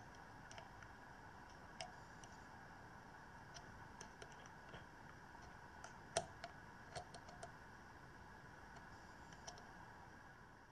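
Faint, sparse clicks of metal multimeter probe tips tapping against the leads of a KBL01 bridge rectifier during a diode test, over a low hiss; the sharpest click comes about six seconds in.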